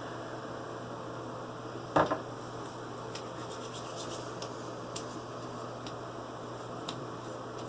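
Hands rubbing aftershave splash into freshly shaved skin, a faint scratchy rubbing with scattered small clicks, broken by one sharp knock about two seconds in.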